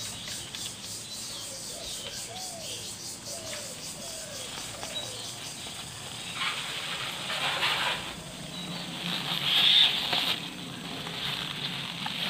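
Fresh taro leaves rustling and crinkling as hands gather, fold and squeeze them into a parcel, in uneven bursts in the second half, loudest near the end.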